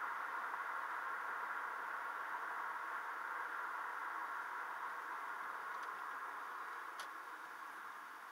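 Steady road and tyre hiss inside a moving car, fading gradually as the car slows behind traffic, with a single short click about seven seconds in.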